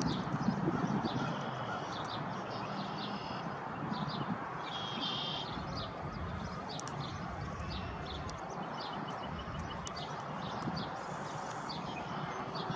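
Small songbirds chirping and calling, short high notes scattered throughout with one louder call about five seconds in, over a steady outdoor rushing noise.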